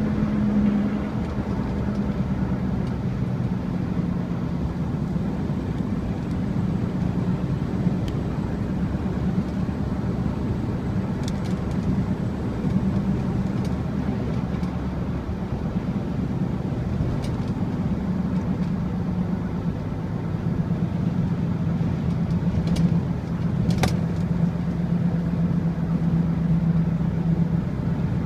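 Steady road noise of a car driving, heard from inside the cabin: a low engine and tyre drone that wavers slightly, with a few faint sharp ticks scattered through.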